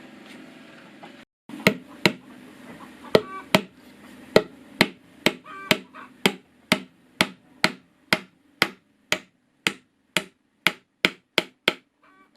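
A steady hum for about a second, cut off suddenly, then a long run of sharp, regular blows of a tool on wood, about two a second, stopping near the end.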